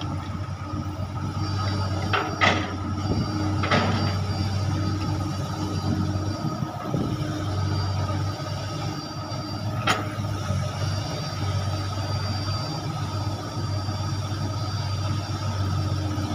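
Komatsu long-reach excavator's diesel engine running steadily while it works the boom and bucket in mud, with a few sharp knocks, about two to four seconds in and again near ten seconds.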